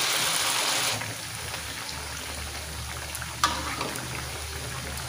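Fritter batter deep-frying in hot oil in a wok: a steady sizzle and bubbling, loudest in the first second after the batter goes in, then settling lower. One sharp click about three and a half seconds in.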